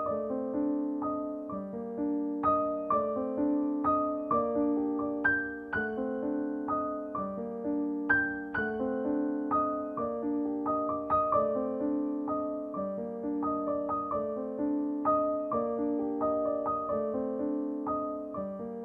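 Soft background piano music, a gentle melody of evenly paced notes with sustained chords.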